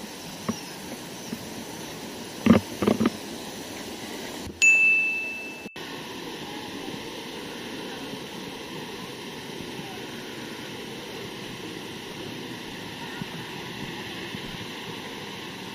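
Steady rushing of a waterfall. About a third of the way in, a single bright ding rings for about a second and cuts off abruptly.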